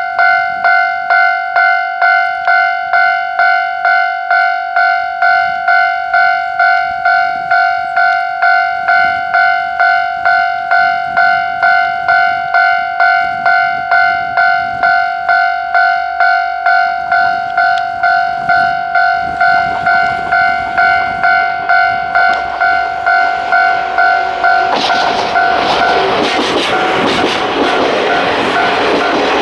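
Level-crossing alarm bell ringing in an even, repeating two-tone ding, a bit under twice a second. About 25 seconds in, a train hauled by a DE10 diesel locomotive reaches the crossing, and its running noise and wheel clatter swell up loud under the bell.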